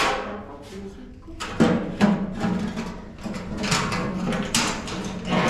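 A large domed metal bread griddle clattering and scraping as it is handled and set down over an electric coil heater, with a string of sharp metal knocks.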